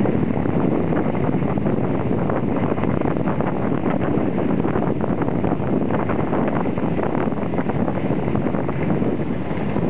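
Loud, steady wind noise buffeting the built-in microphone of a hand-held Panasonic Lumix FX-500 compact camera as the skier moves down the slope.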